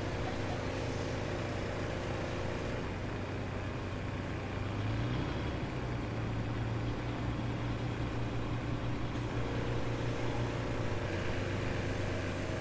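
A fishing boat's engine running as the boat manoeuvres, a steady low hum. The revs rise about five seconds in and ease back down near the end.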